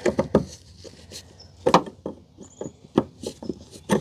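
Irregular small clicks and knocks of a lock-ring tool being fitted onto the ribbed locking ring on top of the fuel pump, with a sharper knock near the middle and another about three seconds in.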